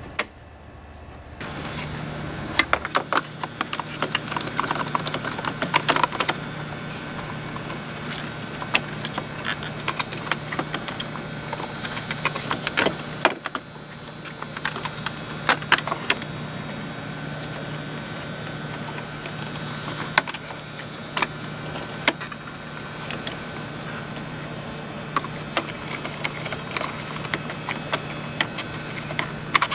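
Irregular clicks and clinks of hand tools on metal, over a steady low hum.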